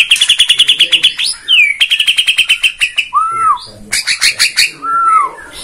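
White-rumped shama of the Borneo type singing: fast trills of rapidly repeated notes, then a few lower, arched whistles and another quick run.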